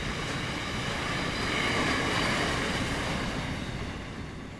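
Wagons of a steel freight train rolling along the track, a steady rumble with wheel-on-rail noise that fades over the last second or two as the end of the train draws away.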